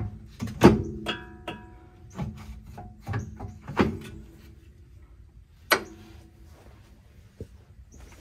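Hand tools knocking and clinking against the steel steering and subframe parts under an SUV: a string of sharp metallic clanks, some ringing on briefly, the loudest about a second in, near four seconds and near six seconds.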